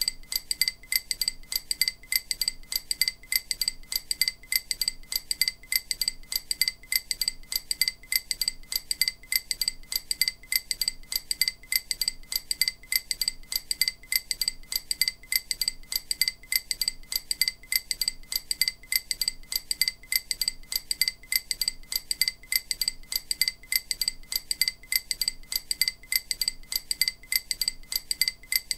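EMDR bilateral-stimulation audio: a quick, even train of short, bright, glassy pings, each the same high tone, repeating without a break. The pings are meant to alternate between the left and right ears to stimulate each side of the brain in turn.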